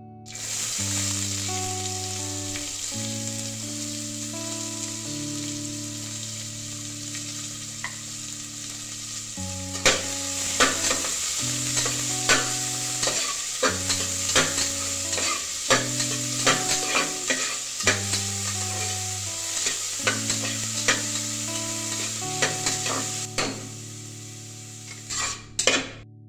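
Chopped onion and vegetables sizzling steadily in hot oil in an aluminium pressure cooker. From about ten seconds in, a metal spatula stirs them, scraping and clinking against the pot.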